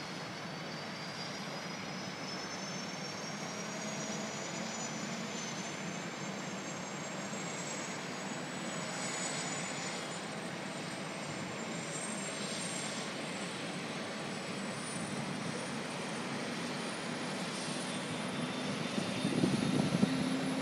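Eurocopter AS365 N2 Dauphin's Turbomeca Arriel turboshaft engines spooling up during start-up: a high turbine whine climbing steadily in pitch over a steady rushing hum. Near the end the sound grows louder and a lower hum comes in.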